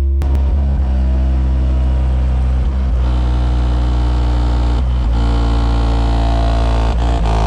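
Very loud, steady deep bass from a 10-inch Kicker L7 subwoofer in a horn enclosure, played inside the car. The bass is heavy with buzzing overtones, and it shifts in short steps about every two seconds.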